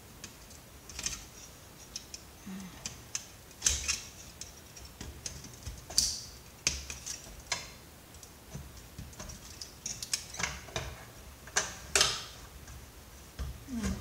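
Irregular sharp clicks, snips and snaps of hand tools, such as wire cutters, working at the wiring and parts of a CRT computer monitor being stripped for scrap, with a few louder snaps among them.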